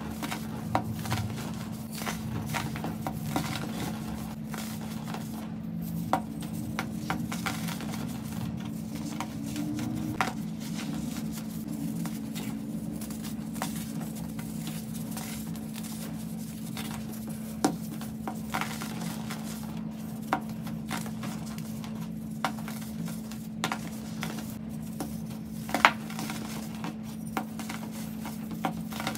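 Hands crushing moulded blocks of compressed baking soda: a run of crisp crunches and crackles as the blocks crumble into powder, with scattered sharper cracks, the loudest about 26 seconds in. A steady low hum runs underneath.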